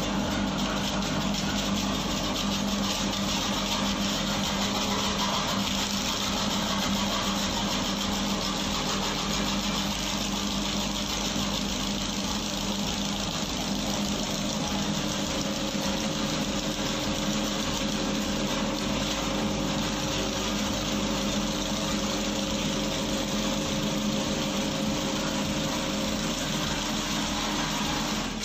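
Home-built dough mixer running with an empty bowl: its half-horsepower electric motor drives the kneading blade through a V-belt and pulleys, making a steady hum with a low tone.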